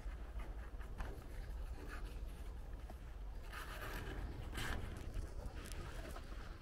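Footsteps of a walker on a village lane over a steady low rumble, with a brief rustling scrape about three and a half seconds in.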